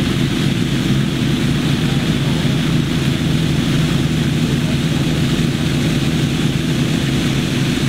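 Engine-driven water pump running at a steady speed, a constant low drone as it fills the Tiger Dam tubes with water through the hose.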